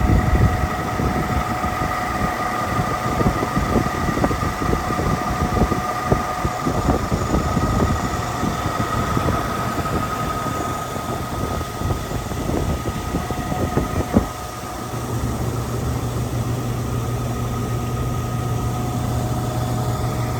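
Vehicle engine running steadily with a few steady whining tones over it; a low, even hum joins about fifteen seconds in.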